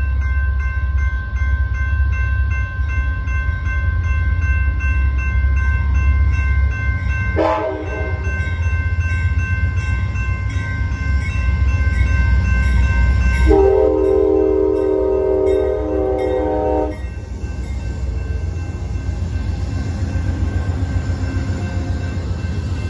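Two General Signals electronic crossing bells ring steadily over the low rumble of approaching Amtrak GE P42DC diesel locomotives. The locomotive horn sounds a short blast about seven seconds in, then a long blast of about three seconds near the middle. After that the train rolls through the crossing with rising wheel and rail noise.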